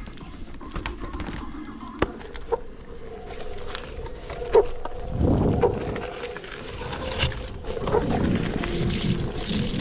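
Footsteps on a gravel-strewn dirt trail, then a Onewheel electric board rolling over it, with scattered sharp knocks and rough, noisy stretches.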